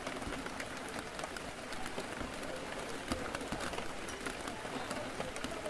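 Steady rain falling on a café window, many small drop ticks over an even hiss, with faint indistinct background chatter.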